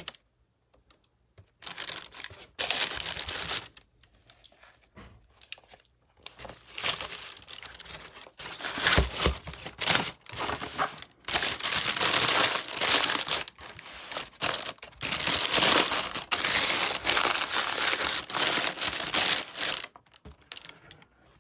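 Shoe-box wrapping crinkling and rustling in irregular bursts as sneakers are packed back into their box, sparse at first and busy through most of the second half.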